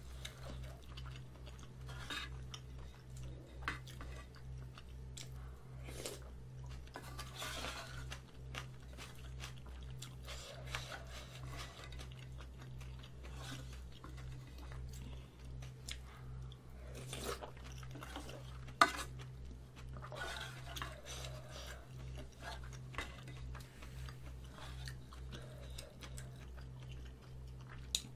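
Close-up eating sounds: chewing mouthfuls of Spam kimchi stew with rice, with a wooden spoon scraping and clicking against a yellow aluminium pot, one sharp clack about 19 seconds in the loudest. A steady low hum runs underneath.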